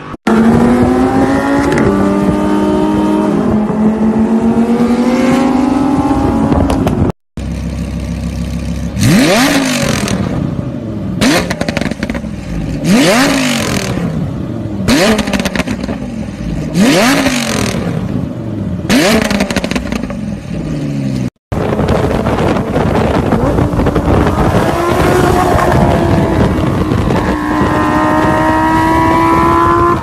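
Lamborghini Huracán V10 engine in three separate recordings. First it runs at speed with a note that drops and then holds steady. Then it is blipped in about six sharp revs roughly two seconds apart, and finally it accelerates with a rising note.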